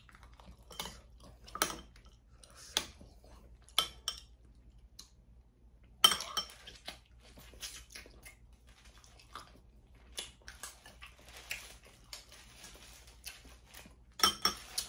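A metal fork clinking against glass bowls of seafood boil in a string of separate sharp clicks, with softer chewing and food-handling sounds between them.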